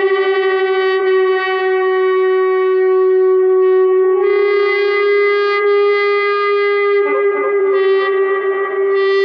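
1957 Fender electric violin holding one long, steady note through distortion, wah and delay effects and a Fender Blues Junior amp. The pitch stays put while the tone shifts colour about four seconds in and again about seven seconds in.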